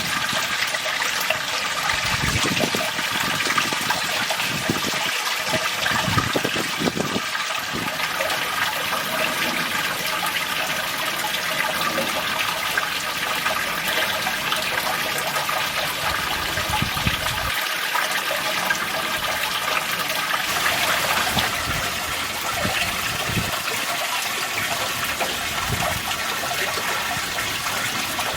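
Running water splashing and trickling steadily into a pond, with a few low thumps in the first several seconds.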